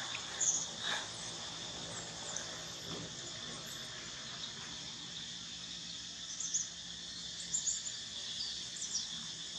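Steady high-pitched insect buzz, with a few short high chirps scattered through it and several close together a little past the middle.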